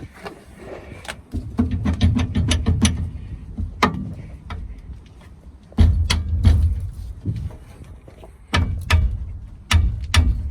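Clanking and rattling with heavy low thumps, in four bursts: parts of an old excavator's cab being handled or worked by hand.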